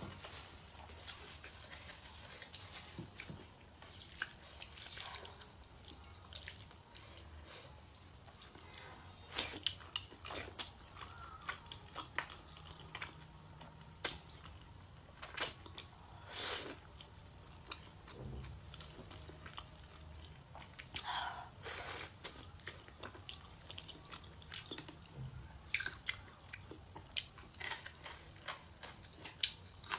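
Close-miked mukbang eating sounds: chewing with many wet mouth clicks and smacks, coming irregularly throughout.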